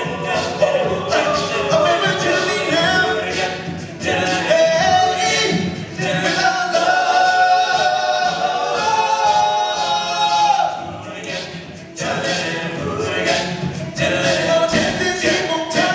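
Live all-male a cappella group singing, a soloist on a handheld microphone over the others' vocal backing. A long held chord fades out a little after ten seconds in, and the full group comes back in about a second later.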